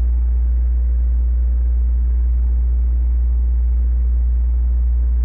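A steady, loud low hum that does not change, with a faint even hiss above it.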